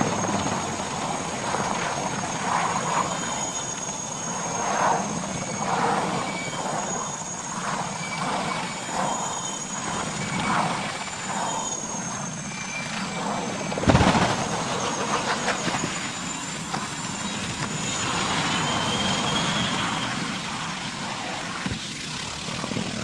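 Helicopter running, its rotor and engine noise steady with a thin high whine wavering above it. A sudden sharp thump comes about 14 seconds in.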